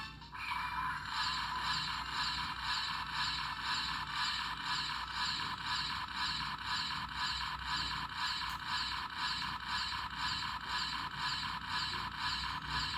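Mechanical sound effect played through the small speaker of a Mazinger Z DX robot toy: an even, machine-like pulsing about twice a second. It starts abruptly and cuts off suddenly near the end.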